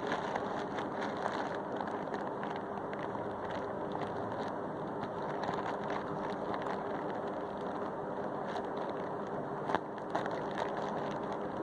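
Plastic packaging crinkling and rustling in irregular crackles as it is handled and opened, over a steady background hiss.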